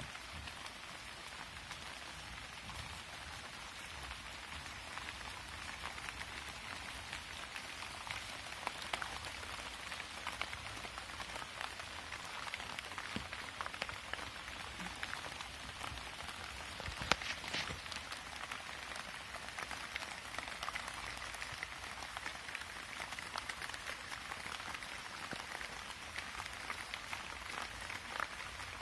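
Steady rain falling on tree leaves, an even hiss dotted with the ticks of single drops. One louder drop lands a little past halfway.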